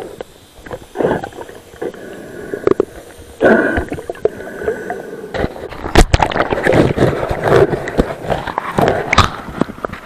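Sea water sloshing, gurgling and splashing around a camera as it moves from underwater up to the surface, with uneven knocks and surges. A steady high tone sounds for about two seconds near the middle.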